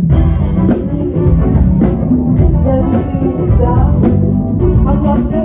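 Live band playing upbeat gospel dance music: a drum kit and guitar with brass horns, loud and continuous.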